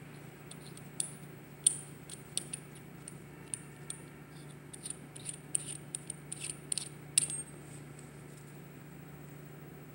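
Small anodized aluminium parts of a disassembled oil catch can clicking and clinking together as they are handled and pulled apart: a quick, irregular run of light metallic clicks that stops about seven seconds in.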